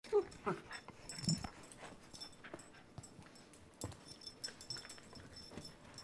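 Two small dogs play-fighting, with a short falling cry from a dog right at the start and another about a second later, then scattered light knocks and scuffles.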